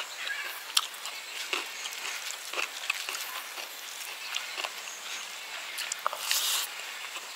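Eating by hand: scattered wet clicks and smacks of chewing and of fingers mixing rice and pork curry, with a louder mouth sound about six seconds in as a handful goes into the mouth.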